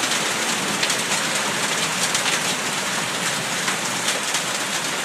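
Heavy rain pouring down and hitting hard surfaces, a steady dense hiss with scattered drops striking.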